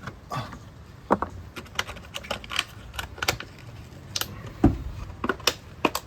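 Irregular sharp metallic clicks and taps, a few a second, from hand tools being worked while setting a rivet.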